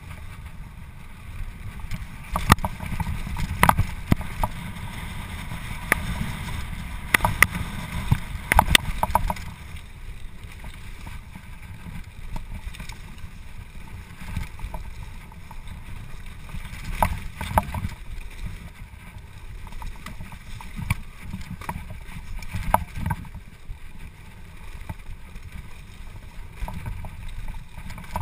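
Canyon Nerve AM full-suspension mountain bike ridden fast down a wet dirt trail: a steady low rumble of tyres and wind on the microphone, broken by sharp clacks and rattles from the bike jolting over bumps and roots. The clatter is thickest in the first ten seconds and comes again in short spells later.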